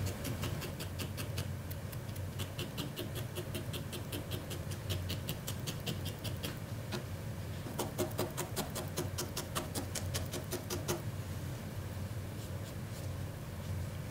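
Felting needle jabbing repeatedly into wool fibres, a quick run of crisp pokes about five a second, with a short break around the middle and stopping a few seconds before the end.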